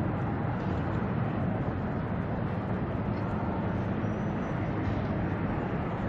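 Boeing 929 Jetfoil running foilborne at speed: a steady rushing roar from its gas turbines and waterjets, with a faint low hum underneath.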